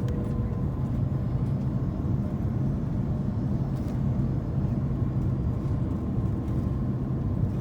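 Steady low rumble of an Airbus A330's engines and airflow heard inside the passenger cabin, with a faint steady whine over it.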